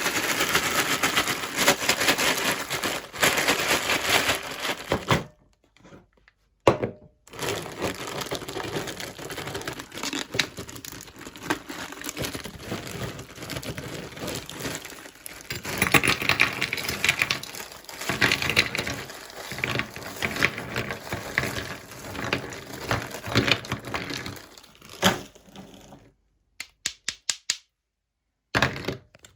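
Meat grinder crushing ice: a dense, continuing run of crunching and cracking with sharp clicks, broken by two short pauses. Near the end a few evenly spaced clicks of the grinder's mechanism come through on their own.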